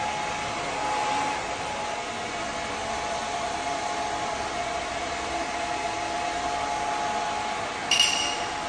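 Dyson Supersonic hair dryer running steadily with a high motor whine, blowing hot air on the hair roots to lift them for volume. A brief high tone sounds near the end.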